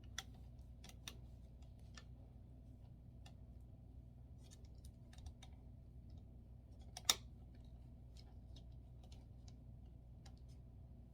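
Faint scattered clicks and taps from handling the parts and screws of a wooden drying rack during assembly, with one sharper click about seven seconds in, over a steady low hum.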